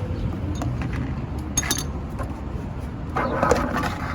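A few light clicks and clinks, then a short rattling clatter about three seconds in, over a low steady rumble.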